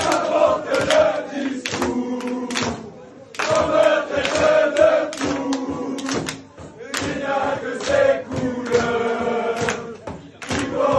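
Group of football supporters chanting in unison, sung phrases a second or two long with short breaks between them, punctuated by sharp percussive hits.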